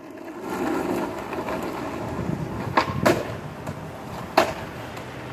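Skateboard wheels rolling on asphalt as the rider pushes off and rolls away, with three sharp clacks, two close together near the middle and one more about a second later.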